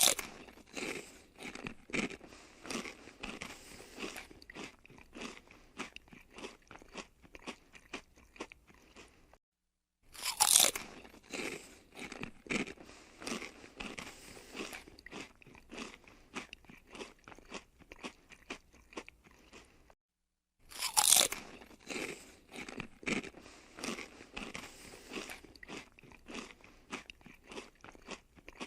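Someone biting into and chewing crispy fried potato chips: a loud crunch followed by a long run of smaller crunches that fade away, repeated three times with brief silences between.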